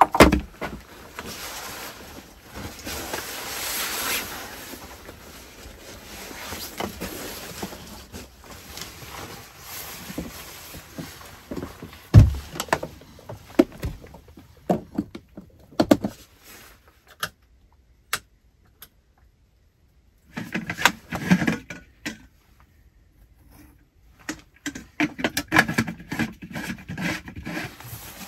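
Steady hiss of rain at first, then a single heavy knock about twelve seconds in. After a brief near-silence come bursts of clattering, clicks and rustling as things are handled inside a log dugout.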